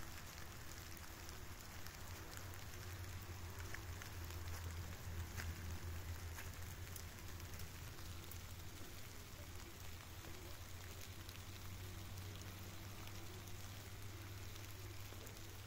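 Light rain pattering on leaves and leaf litter, with scattered separate drops, over a steady low rumble.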